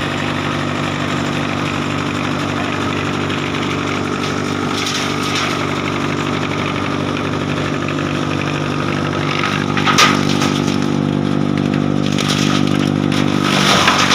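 Heavy-duty double-rotor wood chipper running steadily at a constant speed, with a single sharp crack about ten seconds in.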